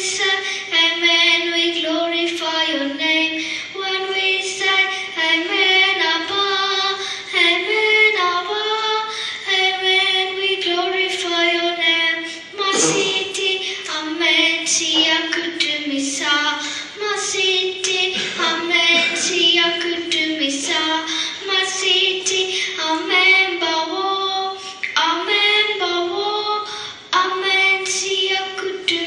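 A young girl singing solo into a handheld microphone, a melody of long held notes that slide between pitches.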